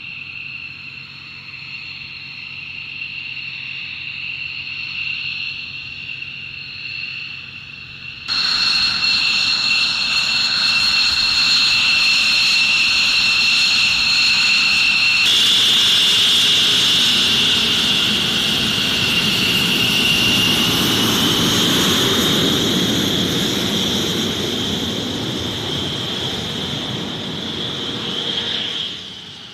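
F-15 Eagle's twin jet engines running at low taxi power during landing rollout and taxiing: a steady high-pitched whine over a rushing noise. It jumps louder about eight seconds in and again about fifteen seconds in, and falls away near the end as the jet passes.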